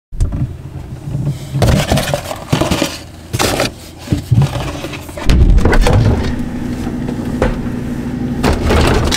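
Kitchen handling sounds: bottles and containers being knocked and clattered as they are taken from a cabinet and the refrigerator door. From about five seconds in, a steady low hum joins in, with a few more knocks.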